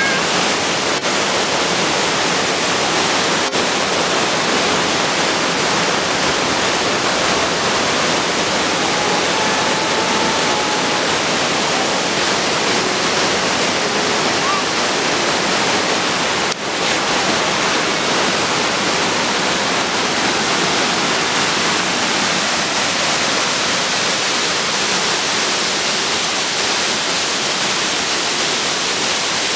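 Avalanche Falls pouring through a narrow granite gorge: a loud, steady rush of falling and cascading water.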